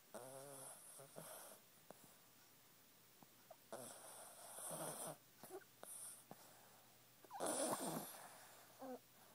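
Dog snoring: several breathy snores at uneven intervals, the first with a buzzing rattle, the loudest a little after seven seconds in.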